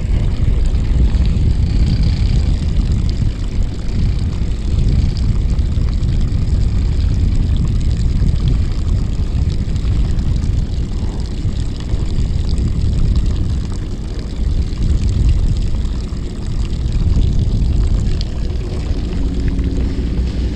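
Steady low rumble of a fishing boat's engine, with wind buffeting the microphone.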